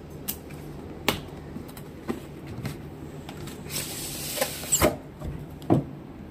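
Cardboard router box being opened by hand: a few light knocks and taps of the box, and about four seconds in a papery scraping rustle as the lid is slid off the base.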